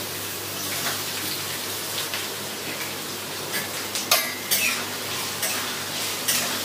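Onion and green chillies sizzling in hot oil in a kadhai, with a utensil scraping and clicking against the pan a few times as they are stirred.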